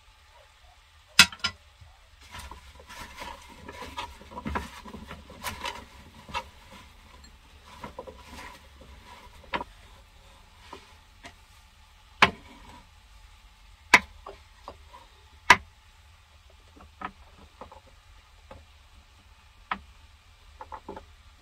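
Kitchen knife knocking on a wooden cutting board, with a few sharp strokes spaced a second or two apart, amid quieter clatter and rustling as food is handled on the board. A denser run of small clicks comes in the first half.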